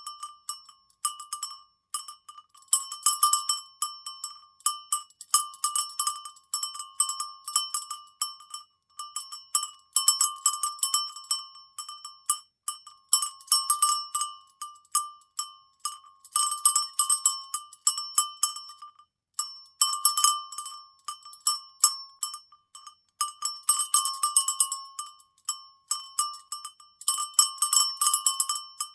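Cowbells shaken, clanking and ringing in quick clusters of many strikes, each burst lasting a second or two with short pauses between.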